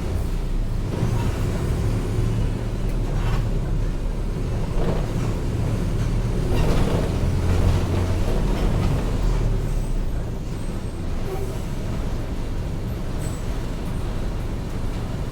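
Mercedes-Benz OF-1722M city bus's diesel engine running with a steady low drone, somewhat louder about halfway through, with a few short knocks and rattles.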